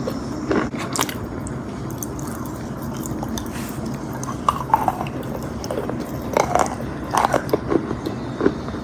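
Close-up bites and crunchy chewing of chunks of white clay: crisp cracks come in clusters, a couple near the start and a denser run through the second half, over a steady background hiss.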